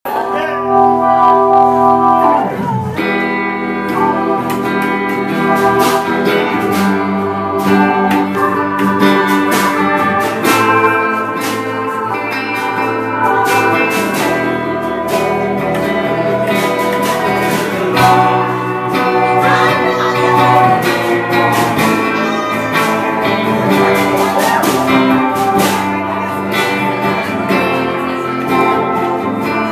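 Small band playing live on upright double bass, hollow-body electric guitar, keyboard, saxophone and drum kit. A chord is held for the first couple of seconds, then the full band plays on with steady drum and cymbal hits.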